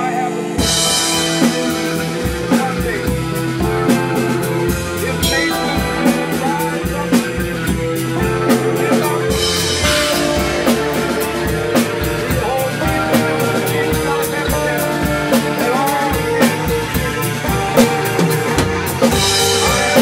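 Live band playing: a drum kit comes in with a cymbal crash about half a second in and keeps a busy, steady beat, over held bass and electronic tones. Further cymbal crashes come around the middle and near the end.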